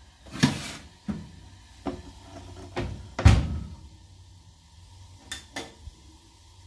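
A string of knocks and clunks from handling the oven door and baking trays, about seven in all, the loudest a deep thump a little over three seconds in.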